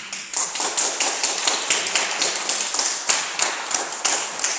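Congregation applauding: many hands clapping at once, a dense irregular patter of claps.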